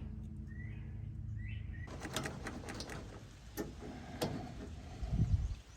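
Two short bird chirps over a low steady hum, then scattered metal clicks and clinks of hand work on a baler's roller chain, with a few dull knocks near the end.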